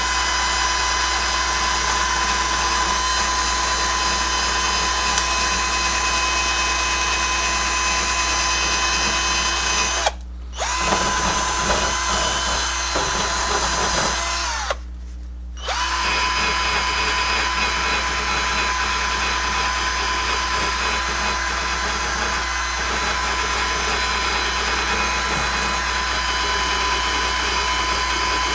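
Cordless drill spinning a wire brush against a doorknob to clean it: a steady motor whine with a scratchy hiss. It stops briefly twice, about ten and fifteen seconds in.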